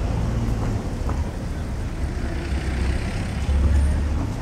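Street ambience with a low rumble that swells to its loudest about three and a half seconds in.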